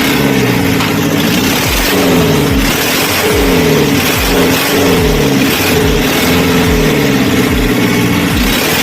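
Mahindra Bolero pickup's BS3 turbodiesel engine being revved over and over, its pitch climbing and falling back in quick repeated blips.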